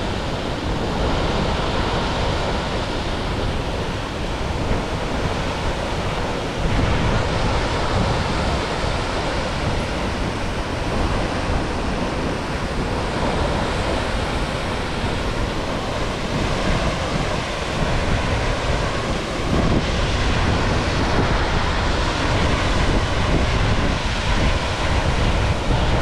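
Glacier-fed waterfall plunging onto rocks: a steady, loud rush of falling water, stepping up a little in loudness about seven seconds in and again near twenty seconds, with wind buffeting the microphone.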